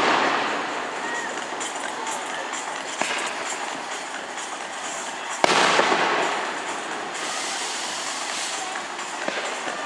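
Fireworks display: shells bursting, with a sharp bang about halfway through followed by a crackling hiss that fades over a second or two, and a fainter pop about three seconds in.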